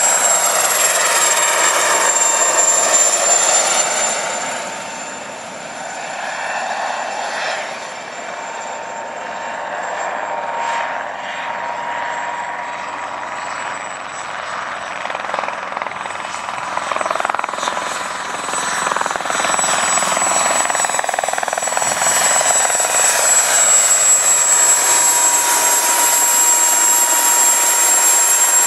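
Mosquito XET ultralight helicopter running in flight, with a steady high whine over the rotor and engine noise. It is loud for the first few seconds, fades for a while, then builds back up to full loudness for the last several seconds.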